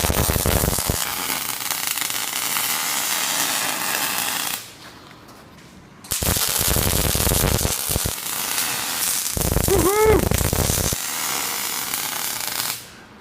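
Electric arc welding crackling and hissing in two long welds, broken by a pause of about a second and a half around five seconds in, and stopping just before the end.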